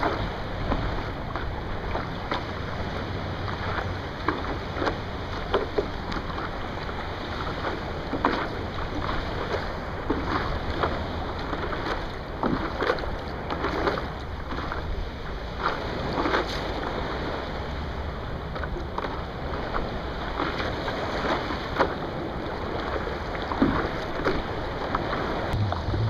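Small sea waves lapping and splashing right against a microphone at the water's surface, with irregular sloshes over a steady hiss of water and wind on the microphone.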